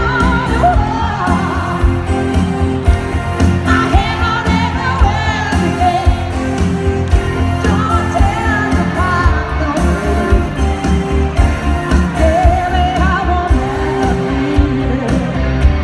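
Live pop music through loud stage speakers: a woman sings lead over a steady, heavy beat.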